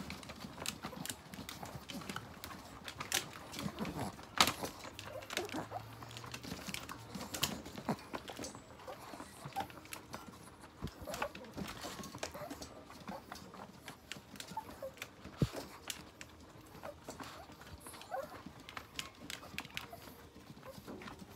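Irregular light clicks and knocks, with no steady rhythm, as a Chihuahua moves about inside its wire pen.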